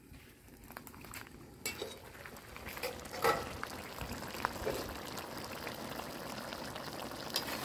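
Faint at first, then about a second and a half in, crabs simmering in coconut milk in a pan start to be heard: steady bubbling with scattered pops and crackles.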